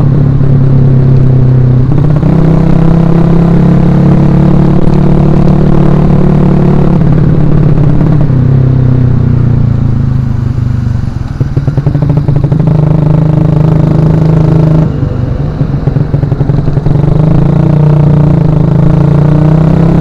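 Suzuki Shogun Axelo R's single-cylinder four-stroke engine running under way, its pitch rising and falling as the throttle is worked. Twice, about halfway through and again a few seconds later, the revs drop off the throttle and the engine note goes quieter and choppy, pulsing rapidly, before picking up again.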